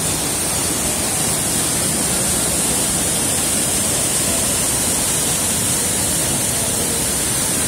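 Waterfall pouring down a steep rock face: a loud, steady rush of white water.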